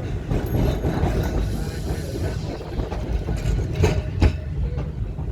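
Blackpool English Electric boat car tram running along the track, a steady low rumble from its wheels and running gear. Two sharp knocks come close together a little under four seconds in.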